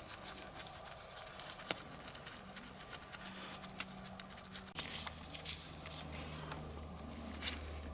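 Faint, scattered small clicks and light scraping as the gear-oil vent screw is threaded back into the outboard's lower unit, by hand and then with a screwdriver. A steady low hum comes in about halfway through.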